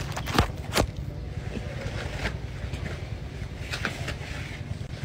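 Low steady rumble on a phone microphone, with a few short rustles and clicks as banana leaves and stalk are gripped and moved, most of them in the first second.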